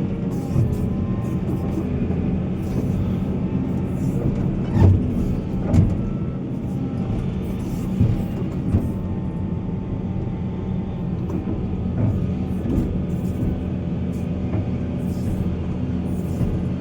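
Heavy diesel mining machinery running steadily, with several sharp knocks, the loudest about five and six seconds in.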